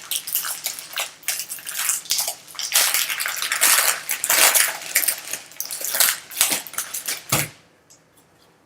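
Foil wrapper of a trading card pack being torn open and crinkled by hand, an irregular crackle that stops near the end.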